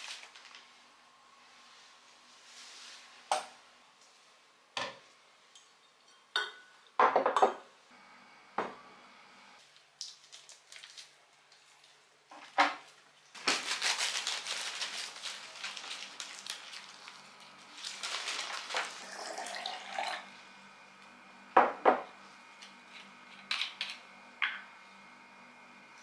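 Newspaper wrapping crinkling and rustling as it is handled, with a long stretch of rustling through the middle. Scattered sharp knocks and clinks of things set down on a wooden table come before and after it.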